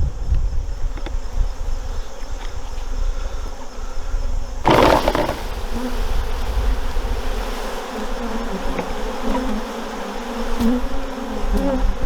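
Honeybees buzzing in a steady, wavering hum around an open hive, with one brief loud burst of noise about five seconds in.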